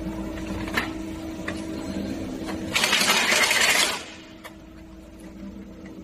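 Aluminium tubes and fins clicking and clinking as they are set by hand into the comb rack of an intercooler core builder machine, with a second-long rush of metallic rattling about three seconds in, over the machine's steady hum.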